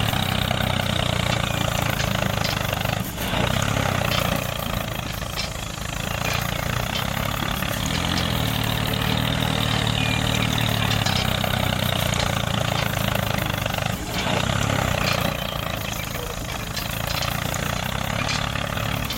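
Mini tractor's engine running steadily, with brief dips in level about three seconds in and again near fourteen seconds.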